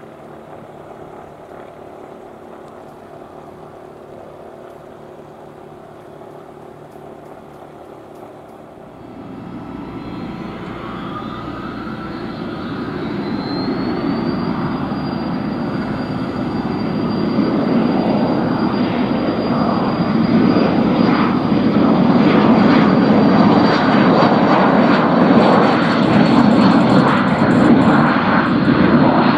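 A light piston aircraft engine idling steadily, then a Beechcraft King Air 200's turboprop engine spooling up. A whine rises over a few seconds and then holds at a steady high pitch, while the engine and propeller noise grows much louder and stays loud.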